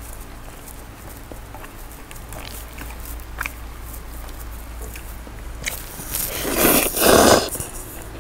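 Close-miked eating: chopsticks clicking against a glass dish and soft chewing, then noodles being slurped loudly about six to seven and a half seconds in, in two pulls close together.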